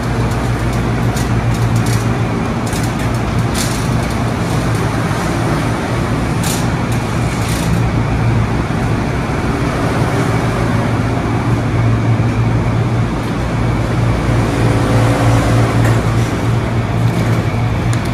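Steady machinery hum and rushing air of a large warehouse store, with a few sharp clicks and rattles from a shopping cart being pushed.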